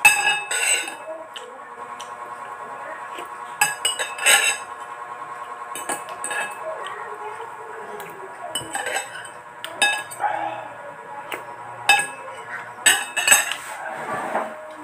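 Metal spoon and fork clinking and scraping against a ceramic bowl while eating, in irregular sharp clinks with a brief ring, over a steady background hum.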